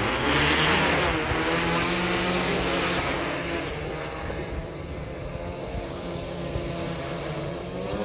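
Agricultural spray drone's electric rotors whirring at lift-off power, a loud steady hum with a rush of rotor wash that is loudest about a second in. It eases slightly as the drone climbs away and hovers.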